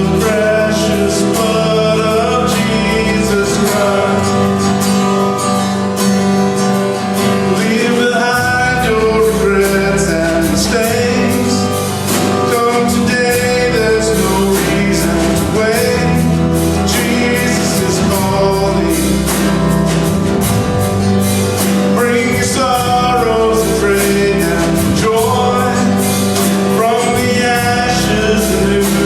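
A gospel worship song: a man singing over guitar accompaniment.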